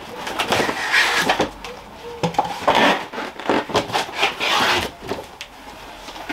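Cardboard scraping and rustling as a smaller inner box is slid up and lifted out of a larger carton, with irregular swishes and a few knocks of cardboard against cardboard.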